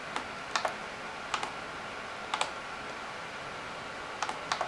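Scattered clicks of a computer keyboard in use: about seven short, sharp clicks spread unevenly over a few seconds, some in quick pairs.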